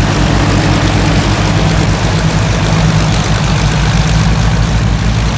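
Avro Shackleton's Rolls-Royce Griffon piston engines running on the ground: a loud, steady drone with a fast, low, even throb.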